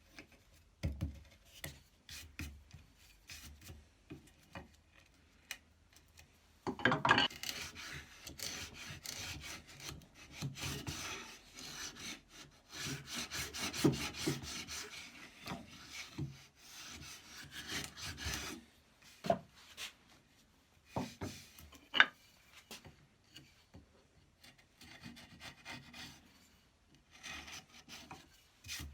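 Record No. 71 router plane shaving wood from the floor of a dado, its blade scraping in repeated strokes as the dado is brought level. The cutting runs thickest from about seven seconds in to about eighteen, with scattered knocks and shorter scrapes after it.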